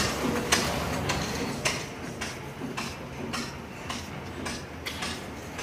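Several antique stationary engines running together, a low steady hum broken by sharp pops about twice a second, not quite evenly spaced.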